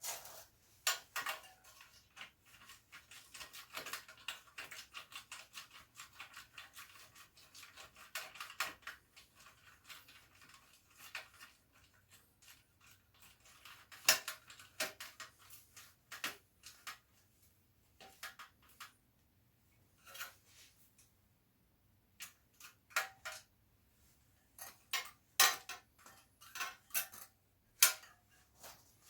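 Ratchet wrench with a 10 mm socket clicking in quick runs of ticks as the mudguard's bolts are tightened, with pauses and a few louder metal clinks.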